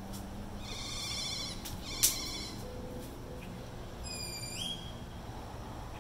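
Birds calling: a rapid buzzy call about a second in, and a whistled note that jumps upward in pitch near the end. About two seconds in, a single sharp click is the loudest sound.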